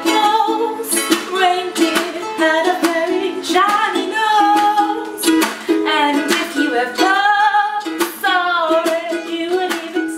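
Ukulele strummed in a steady rhythm with a woman singing along.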